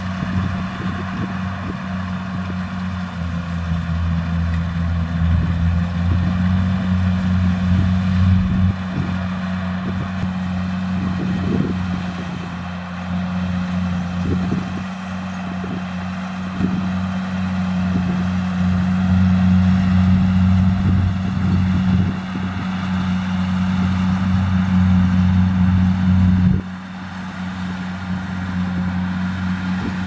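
Kubota DC-70 Plus rice combine harvester running steadily under load as it cuts and threshes: a constant low diesel engine drone with mechanical rattle and whir above it. The low drone drops off suddenly near the end.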